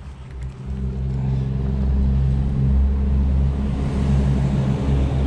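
Road traffic on the bridge overhead: a vehicle engine's steady low rumble, which swells about a second in and holds.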